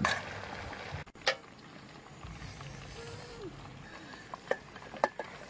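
A few sharp knocks and clinks of steel cookware, a tray and pot handled over a simmering pot of frogs, over a faint steady hiss.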